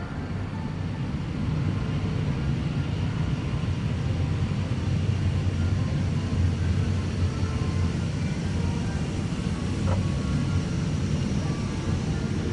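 Steady low rumble of the air-conditioning in a parked Airbus A350-1000's cabin, getting a little louder about a second and a half in.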